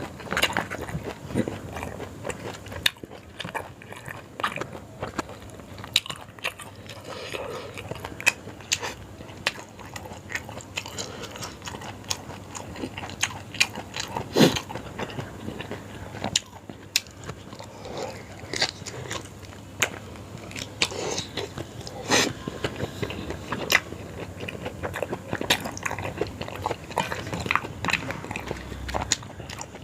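Close-miked eating of yong tau foo: steady chewing and biting, with many short sharp clicks and crunches scattered throughout.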